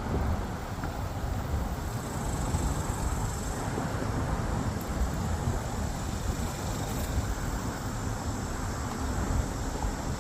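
Wind buffeting the microphone outdoors: a steady low rumble that flutters and gusts, with no distinct events.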